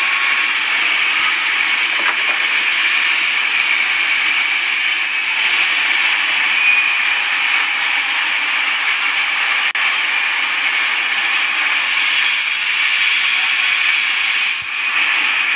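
Sawmill machinery running with a steady, loud hissing noise, briefly broken twice.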